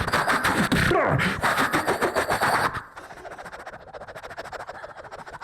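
Mouth-made sound effects into a microphone: a vocal imitation of rapid machine-gun fire, with falling swooping sounds about a second in. It stops abruptly about three seconds in, leaving a much quieter stretch.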